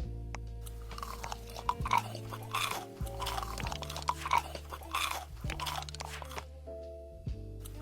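Crunchy chewing and biting of food, a run of irregular crunches from about a second in until near the end, over background music.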